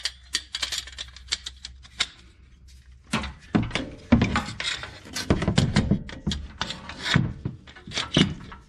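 Handling noises: a quick run of sharp clicks and knocks, then heavier knocks and rubbing from about three seconds in, as hands work around the truck's front brake caliper.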